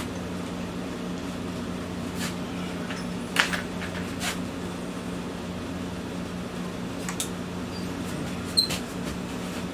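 Steady hum of a wall air conditioner, with a few faint metallic clicks as an Allen key is tried on the propeller bolts at the nose of a gas-powered RC airplane.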